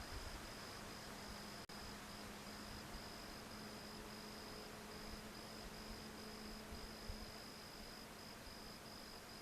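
Insect chirping in a steady high pulsing trill, about two to three pulses a second, over wind noise on the microphone and a faint low hum.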